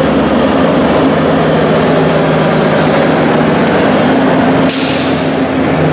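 Diesel locomotive passing close by, its engine running with a steady low drone. A brief loud hiss comes about five seconds in.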